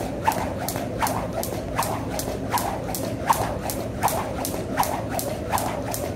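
Jump rope being skipped: the rope swishes through the air and ticks against the floor in a steady rhythm of several turns a second, with a sharper slap about every three-quarters of a second.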